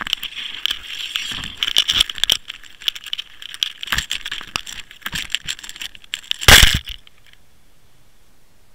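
Handling noise picked up by a Water Wolf underwater camera inside its waterproof housing as it is taken from the water and carried onto a boat deck: crackling, rubbing and small clicks. A loud, half-second rush of noise about six and a half seconds in comes as the camera is set down, and after that there is only a faint steady hiss.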